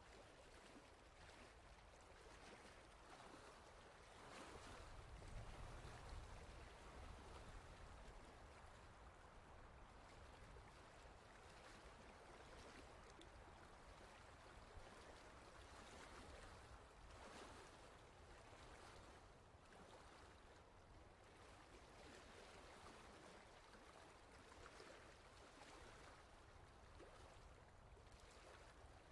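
Faint, steady rushing noise with no speech or music, swelling a little with a low rumble about four to seven seconds in.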